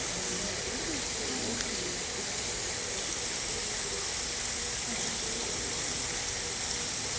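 Steady rush of running water from a garden koi pond's water feature.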